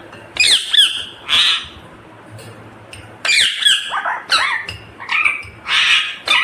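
Indian ringneck parrot squawking: a few short calls with bending pitch, then, after a pause of about a second and a half, a longer run of calls.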